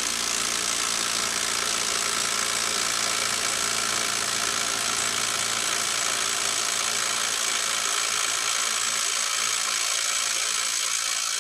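Hyper Tough brushless 12-volt impact driver (98809) hammering continuously with the trigger held, its rapid impacts running steadily without a break. It is under heavy load, tightening a bolt against hydraulic rams as the pressure builds.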